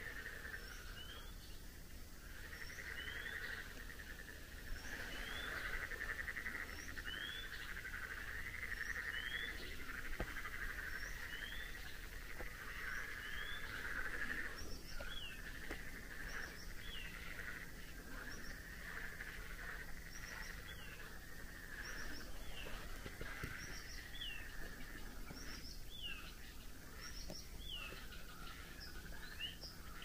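A steady evening chorus of frogs, with a bird repeating a short whistled note about once a second. The notes rise at first and turn to falling notes about halfway through.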